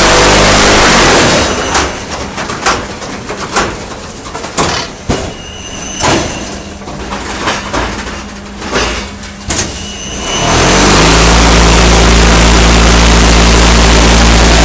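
Automatic concrete paving-stone and block machine working through its cycle. The loud compaction vibration winds down and stops about a second in. Several seconds of metal clanks and knocks follow as parts and boards move. About ten seconds in, the vibration spins up again and runs loud and steady.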